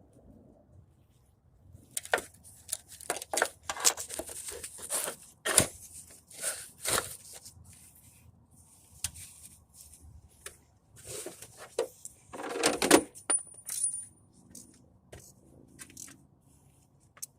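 Metal objects clinking and clattering: a run of sharp clicks and knocks, busiest from about two to seven seconds in and again around eleven to thirteen seconds, with the loudest knock near the thirteen-second mark.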